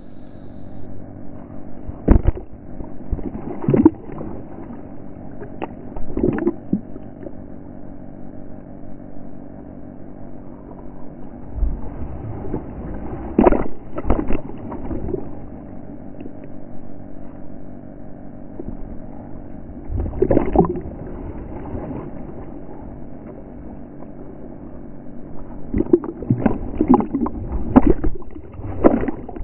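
Radio-controlled toy warship's electric motor humming steadily as it cruises, heard muffled through a waterproof camera housing at the water's surface. Water slaps and splashes against the housing several times, with a run of splashes near the end.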